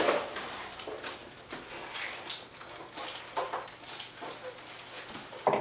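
Gift-wrapping paper rustling and crinkling in scattered short bursts as a wrapped present is handled and torn open.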